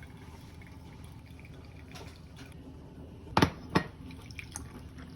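Water trickling and dripping during pour-over coffee brewing, with faint small ticks. Two loud, sharp knocks close together about three and a half seconds in.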